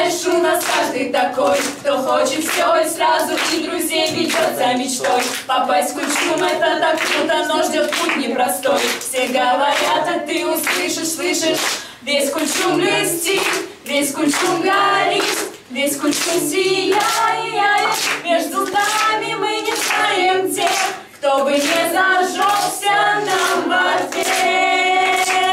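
A small group of teenagers singing a song together without instruments, in mostly high voices, keeping time with rhythmic hand claps.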